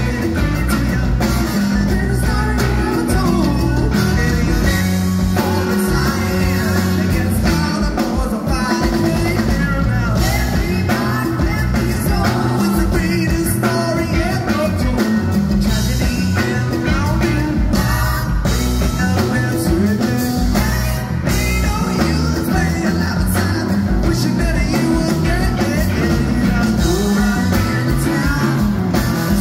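Live psychedelic rock band playing loud, with electric guitar, drum kit, congas and singing.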